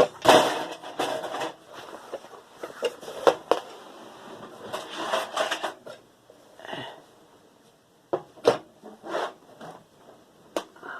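Irregular knocks, clicks and scraping as scrap parts and tools are handled and moved about on a work surface, with a sharp knock about a third of a second in and a cluster of taps about eight to nine seconds in.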